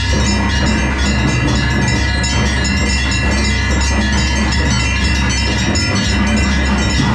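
Temple bells rung rapidly and without a break during aarti, the lamp offering to the deity, in a dense ringing clangour over a steady low rumble.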